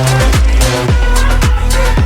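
Electronic dance music with a steady, deep kick drum about twice a second under sustained synth tones.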